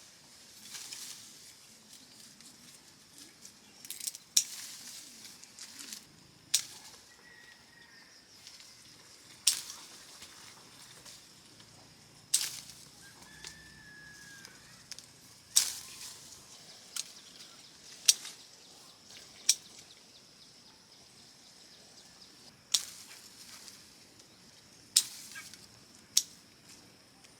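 A series of sharp snaps or clicks, about a dozen, irregularly spaced one to three seconds apart, over a quiet outdoor background with a few faint bird chirps.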